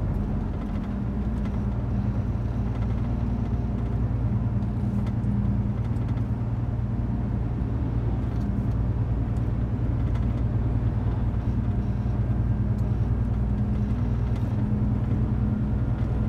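Car driving at a steady speed: a continuous low drone of engine and road noise.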